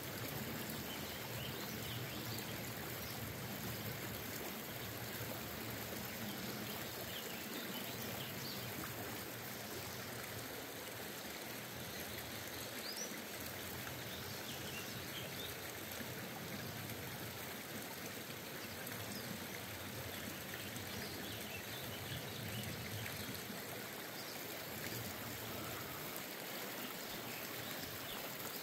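A stream running steadily, an even rush of water that holds for the whole stretch.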